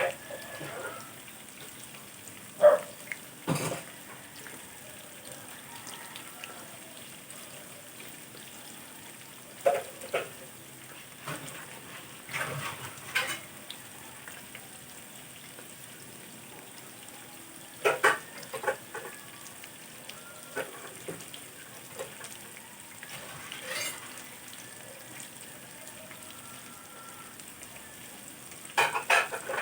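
Kitchen sounds: dishes and utensils clinking and knocking now and then, over a steady low sizzle of food frying in a pan.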